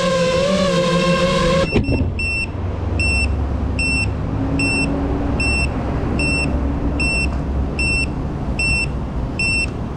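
A 5-inch FPV quadcopter's motors and props whine at high speed, then cut off abruptly under two seconds in as the quad sets down. After that a small onboard buzzer beeps steadily, one short high beep about every 0.8 seconds, over a low rumble.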